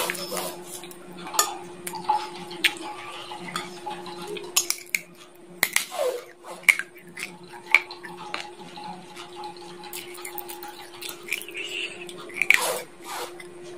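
Chicken bones being bitten and crunched between the teeth: irregular sharp cracks and clicks, several loud ones around the middle and near the end. A steady low hum runs underneath.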